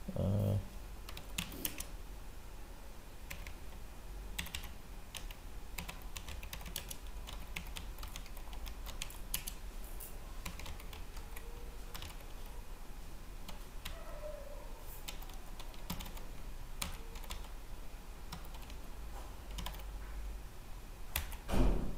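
Computer keyboard typing: irregular runs of keystroke clicks as a terminal command is typed, over a steady low hum. A low thump comes just after the start, and a louder one shortly before the end.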